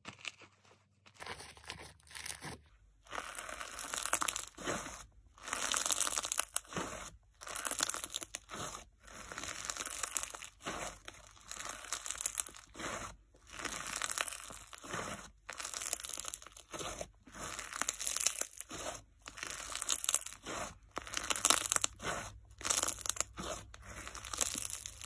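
Snow-packed fizz slime being squeezed, folded and pressed by hand, giving a crunchy, fizzing crackle. It comes in a long series of bursts, roughly one a second, with short breaks between.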